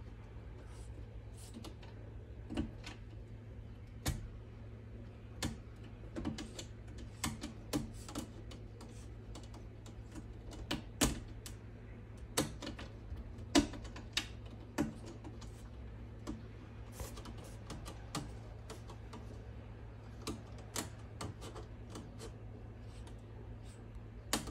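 Cat chattering at a bird: sharp clicks at irregular intervals, singly and in short quick runs, over a steady low hum.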